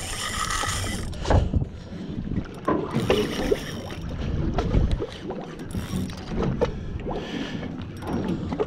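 Choppy sea water slapping and knocking against a small aluminium boat's hull, with wind on the microphone and irregular knocks as a spinning rod and reel are worked for jigging.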